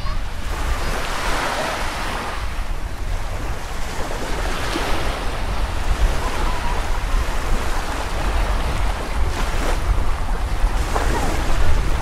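Small waves breaking and washing up on a sandy shore, the surf noise rising and falling, with wind rumbling on the microphone and faint voices of people nearby.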